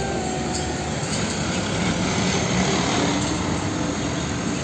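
Diesel tanker truck driving along the road: steady engine and tyre noise, the engine note rising slightly about three seconds in.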